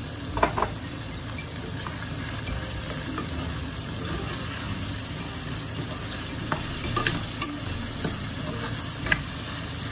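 Squash chunks being stirred into sizzling meat, onion and tomato in a cooking pot with a plastic spatula. The spatula scrapes and knocks sharply against the pot several times, loudest about half a second in.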